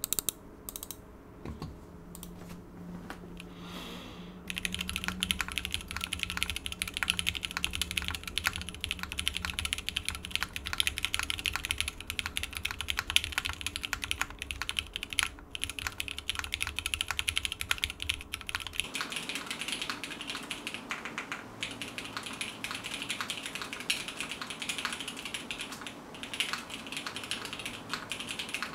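Mechanical keyboard typing on a Hex 3C with lubed Cherry-topped JWICK Black linear switches, an FR4 plate and DCX keycaps. A few separate key presses come first, then fast, steady typing from about four seconds in. At about 19 seconds the recording switches to a camera's built-in microphone.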